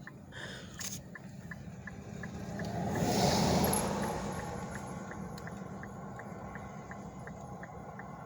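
Another car passing close by, its tyre and engine noise swelling to a peak about three seconds in and fading away. Under it, the car's hazard flashers tick steadily, about two to three clicks a second, with the engine idling low.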